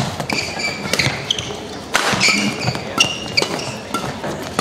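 Fast men's doubles badminton rally: rackets striking the shuttlecock in sharp cracks, roughly two a second, with short high squeaks of the players' shoes on the court mat between them.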